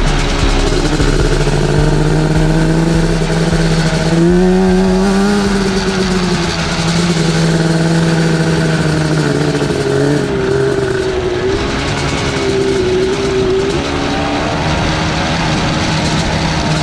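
Yamaha Banshee quad's two-stroke twin engine, a 421 stroker build, running under steady throttle on a dirt trail, heard close from the back of the quad. Its pitch rises briefly about four seconds in and then settles back.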